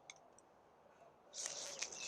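A brief burst of rustling and scraping with a few sharp clicks, about one and a half seconds in, from handling a plant pot and dry potting mix.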